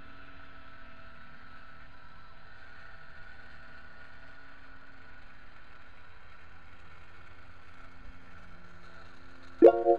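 Electric motor of an antenna elevation rotor running steadily, with a constant hum made of several held tones, as it tilts a magnetic loop antenna. Loud pulsing synthesizer chords come in near the end.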